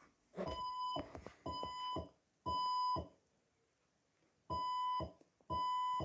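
Fire-Lite voice evacuation alarm tone: three beeps of about half a second each, a pause of about a second and a half, then the three-beep temporal pattern starts again, sounding between the spoken evacuation messages.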